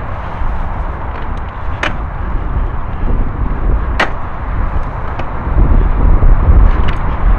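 Mountain bike rolling over a narrow dirt track, with a steady low rumble of wind on the microphone and tyre noise that grows louder about two-thirds of the way through. Two sharp clicks of the bike rattling over bumps come about 2 and 4 seconds in, with a few fainter ticks between.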